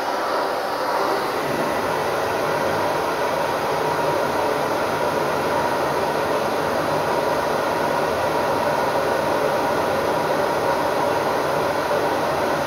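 Handheld electric hair dryer running steadily, blowing hot air onto a latex balloon to heat it: a constant rush of air over a faint motor hum.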